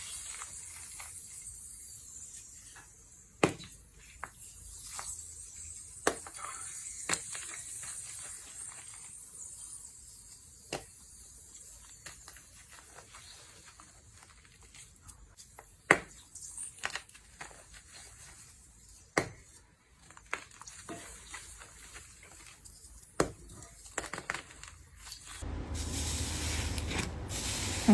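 Slime being handled by hand: scattered sticky clicks and pops over a faint hiss. A louder, denser crackling starts near the end.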